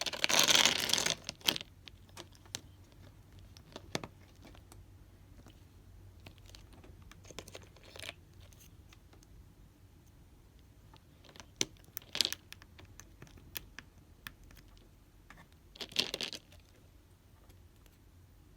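Packaging being torn open and handled: a loud ripping, rustling burst at the start, shorter tears later on, and scattered small clicks and taps in between.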